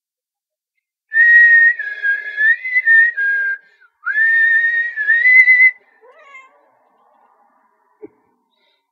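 A person whistling two phrases of held notes, the first about two and a half seconds long and the second a little shorter, while a kitten lies being stroked. Just after the whistling stops the kitten gives a faint short meow that rises and falls, its complaint at the whistling.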